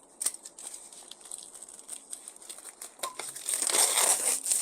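Packing material crinkling and rustling, with scattered small clicks, swelling into a louder spell of rustling and tearing about three and a half seconds in, as a smoker rack is unwrapped.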